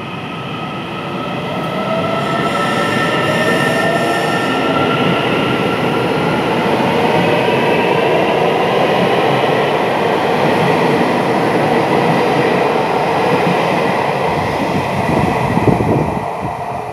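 Taiwan Railway EMU800 electric train pulling out and accelerating. The motor whine rises in pitch over the first few seconds, over the steady noise of the cars and wheels rolling past. It eases off near the end as the train moves away.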